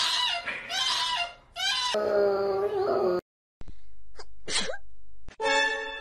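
A kitten yowling repeatedly, with loud wavering cries for about two seconds, as it is given an injection. After a cut come two short sneezes from a woman, and then music starts near the end.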